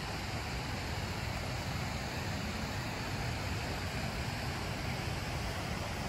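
Steady rush of flowing water, an even, unbroken noise.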